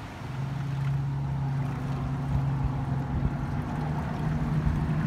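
Electric boat motors driving the propellers under way: a steady low hum that comes in about a third of a second in, with the sound getting louder, over the rush of water along the hulls and some wind.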